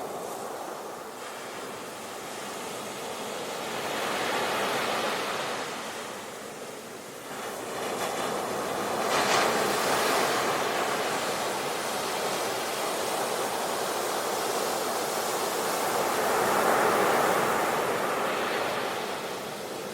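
Sea waves breaking on a shore, the surf swelling and ebbing in slow surges a few seconds apart, the biggest breaker about nine seconds in.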